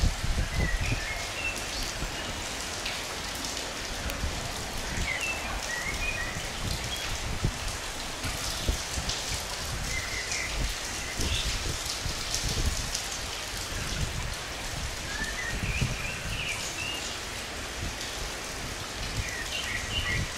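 Steady rain falling and spattering, with a bird giving short chirps several times.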